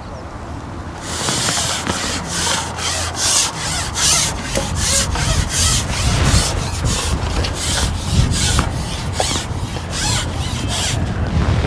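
Rhythmic rasping, scraping strokes, about three a second, like a hand saw or file working. They start about a second in and stop near the end.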